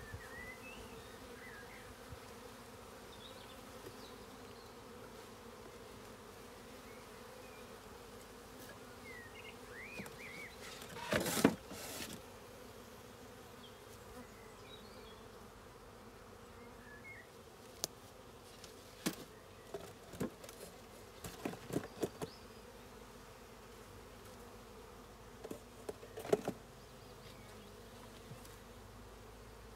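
Honeybees from the colony buzzing in a steady hum. Sharp knocks and clatters cut through it, the loudest about eleven seconds in, with smaller ones later.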